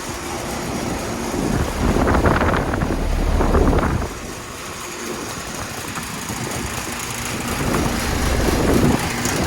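Two Rheem Classic 3.5-ton central air conditioner condensing units running with a steady fan and compressor hum. The hum swells louder twice: about two to four seconds in, and again near the end.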